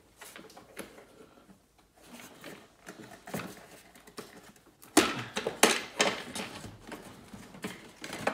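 Irregular clicks, taps and knocks of hands working at the plastic air filter housing cover and cables in an engine bay, freeing the cover's last bolt. A denser, louder run of clattering starts about five seconds in.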